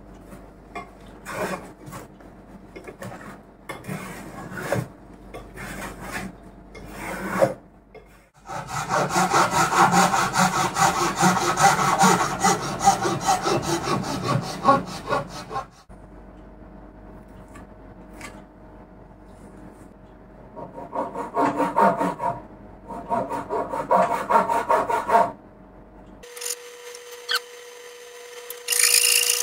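Hand tools shaving and cutting wood: scattered scraping strokes, then about seven seconds of fast, even back-and-forth strokes, then further short bursts of strokes. Near the end a steady hum with hiss takes over.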